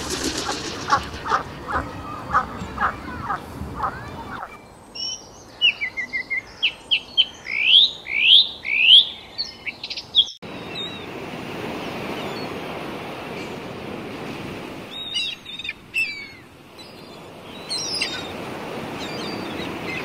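A domestic duck quacking in a run of short calls. Then a European robin sings a phrase of loud rising whistled notes, which stops abruptly about ten seconds in. After that comes a steady rush of noise with a few short high chirps.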